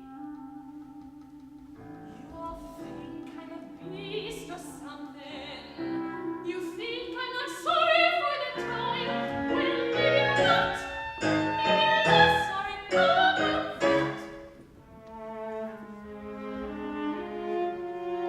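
A soprano singing an opera aria with instrumental accompaniment. The voice grows loudest and most sustained in the middle, then drops back so the accompaniment carries the last few seconds.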